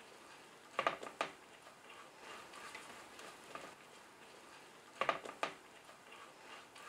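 Wooden spatula stirring chopped nuts through sugar syrup in a non-stick pan: a faint scraping stir, with two short bursts of clacks as the spatula knocks against the pan, about a second in and about five seconds in.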